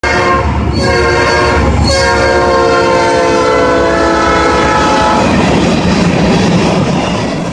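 Freight train locomotive's air horn sounding a chord of several tones, held for about five seconds with two brief dips near the start. The horn then stops, leaving the hopper cars' wheels rolling past on the rails.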